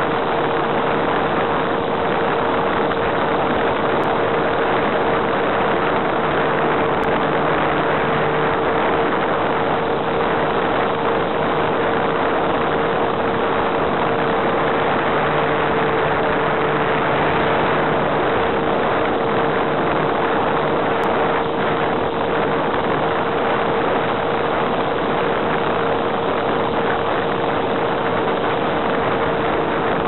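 Onboard audio of an electric RC plane in flight heard over an analog FPV video link: the motor and propeller running at steady throttle, a constant drone under a heavy rush of wind and radio hiss, cut off above the mid treble.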